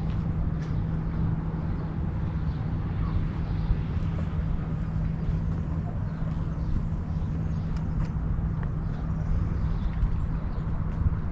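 A vehicle running steadily: a constant low hum over a low rumble and a wash of noise.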